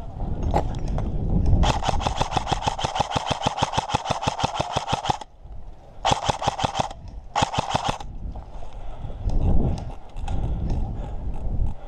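An airsoft electric rifle firing on full auto: one long rapid burst of about three and a half seconds, then two short bursts. A low rumble is heard at the start and again near the end.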